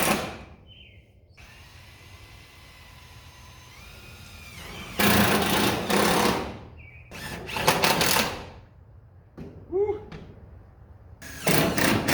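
Power driver running screws into sheet-metal trim in three bursts, each about a second long, with a fast rattling pulse inside each run.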